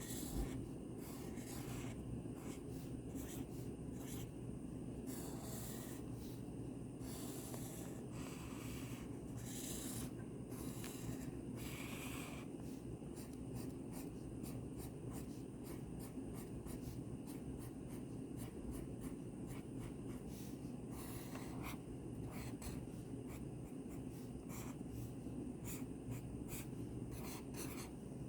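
Repeated strokes of a pen or marker scratching across paper as a drawing is outlined, in short irregular strokes over a steady low room hum.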